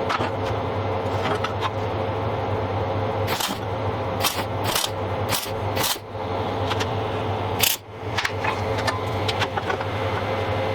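Steady workshop hum with a handful of sharp metallic knocks in the middle, as steel plate parts are handled and set into position for fitting.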